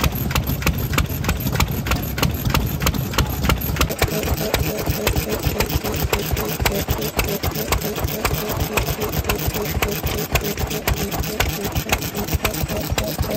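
Old single-cylinder Japanese farm stationary engines (nōhatsu) running, each firing stroke a sharp regular beat. About four seconds in the deep low rumble drops away, leaving a quicker, lighter run of beats.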